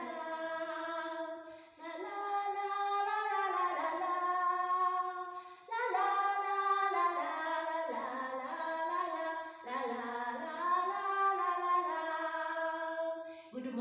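A woman singing alone without accompaniment, holding long notes in phrases of two to four seconds with short breaths between them.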